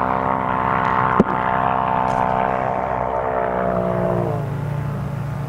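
Motor vehicle engine running with a steady drone, its pitch dropping about four seconds in as it slows. There is one sharp click just over a second in.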